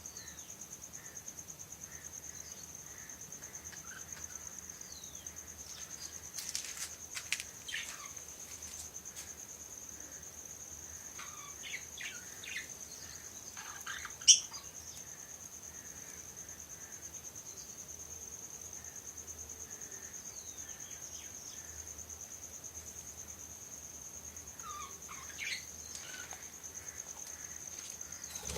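A steady, high insect trill like a cricket's runs throughout, with scattered short bird chirps coming in small clusters. A single sharp click about halfway through is the loudest sound.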